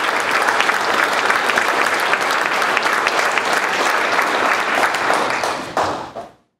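An audience applauding: dense clapping from many hands that dies away near the end and cuts off to silence.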